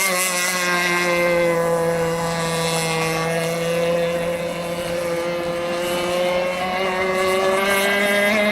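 Small gas engine of a model boat running steadily on the water with a high buzzing note. Its pitch sags a little midway and climbs back up near the end.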